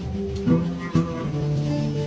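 Background music led by a plucked string instrument, with new notes struck about every half second.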